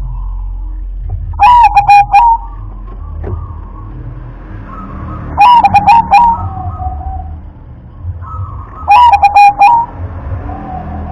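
Zebra dove (perkutut) cooing: three loud phrases of quick, staccato repeated notes, one about every three and a half seconds.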